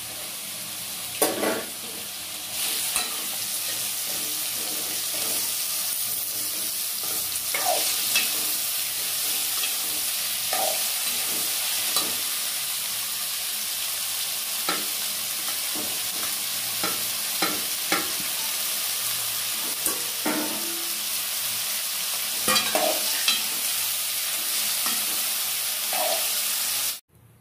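Watermelon rind pieces, dried red chillies and tomatoes sizzling in hot oil in an aluminium kadai, with a metal ladle scraping and clinking against the pan as they are stirred. The sizzle is steady and cuts off suddenly near the end.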